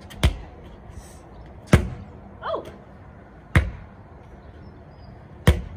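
A medicine ball being passed back and forth and caught: four sharp thuds, about two seconds apart.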